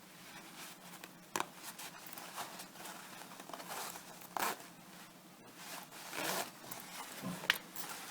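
A zipper slider being worked by hand onto the teeth of a trousers' zipper: scattered small clicks and short scraping rasps, with one sharp click near the end.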